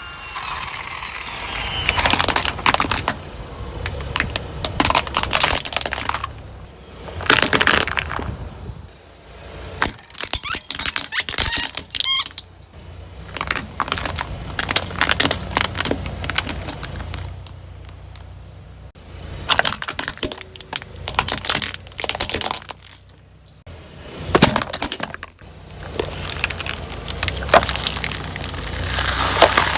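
Brittle, crunchy objects cracking and crackling as car tyres roll over and crush them, in repeated bursts of sharp snaps with a low rumble underneath.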